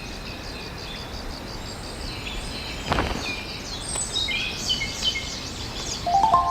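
Forest birds singing and calling, starting with a fast run of repeated high chirps, then a denser mix of calls; a single sharp knock sounds about three seconds in. A steady lower tone begins near the end.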